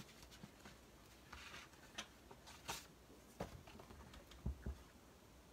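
Faint rustles and light taps of paper and card being handled on a craft table, with a few soft knocks about three and a half and four and a half seconds in.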